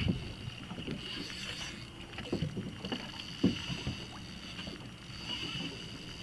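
Low rumble of wind and water lapping against the hull of a small boat drifting on choppy water, with a few soft knocks, the clearest about three and a half seconds in.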